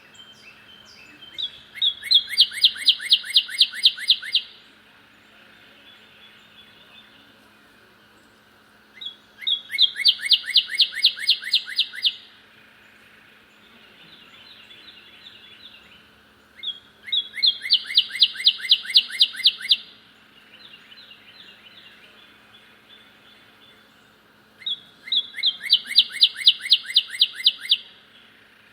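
Northern cardinal singing loudly, four songs about eight seconds apart, each a couple of slurred whistles leading into a fast run of repeated notes lasting about three seconds. Faint chirping comes in between the songs.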